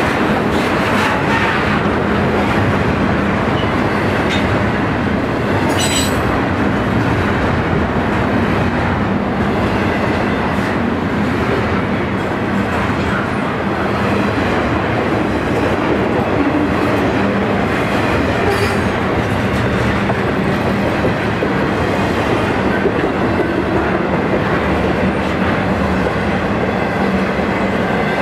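A BNSF intermodal freight train's double-stack and trailer flatcars rolling past at speed: a steady, loud rumble and clatter of steel wheels on the rail joints. Two brief high-pitched wheel squeals cut through, about six seconds in and again around nineteen seconds.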